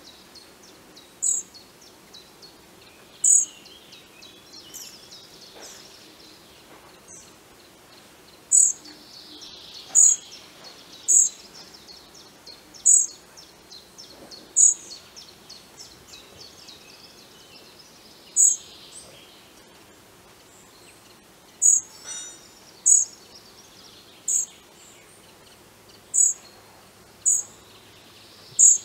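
European pied flycatcher fledgling giving short, very high-pitched begging calls, one every second or two with a few longer pauses, asking to be fed.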